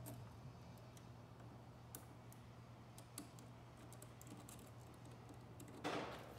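Worm-drive hose clamp being tightened with a screwdriver around a rubber intake hose coupler: faint, scattered small clicks over a low steady hum, with a louder short scuff near the end.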